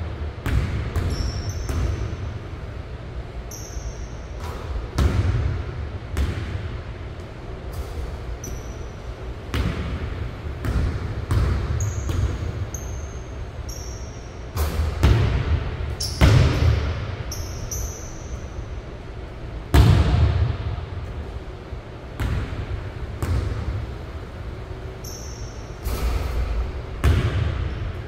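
Basketball bouncing on a hardwood gym floor, each hit echoing around the large gym, with short high squeaks in between.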